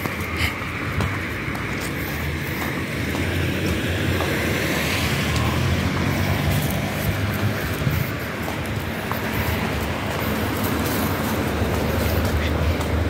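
Street traffic noise: a steady rumble of passing cars, swelling slightly about four seconds in.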